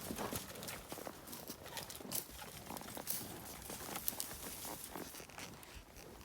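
Uneven footsteps with crunching and rustling over brushy ground: short, irregular clicks with no steady rhythm.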